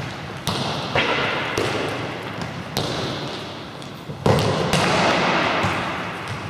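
A futsal ball being kicked and bouncing on a hard sports-hall floor: about six sharp thuds, each with a ringing hall echo. The loudest comes a little after the middle.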